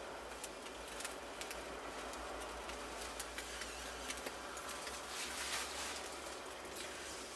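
Wood fire burning in a mud hearth: a low steady hiss with many small crackles and pops, a few louder crackles about five seconds in.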